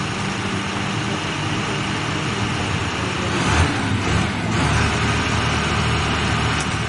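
Steady heavy engine noise from a utility-truck-mounted DTH drill rig and its air compressor running, with a brief surge about halfway through.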